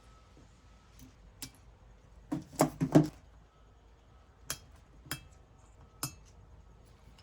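Small metal turbo parts and hand tools clinking and knocking against each other: a quick cluster of knocks about two and a half seconds in, the loudest, then single sharp clicks about a second apart.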